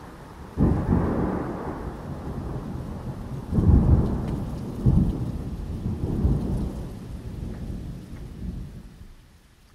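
Thunderstorm: a thunderclap breaks about half a second in and rumbles on, swelling again several times before it fades out near the end, with rain falling underneath.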